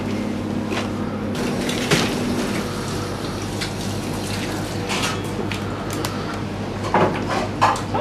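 Hands mixing and scooping a large tub of chopped vegetable and mussel salad: moist rustling and squelching with scattered clicks of the plate, and a few sharp dish clatters, the loudest near the end. Under it runs a steady electrical hum.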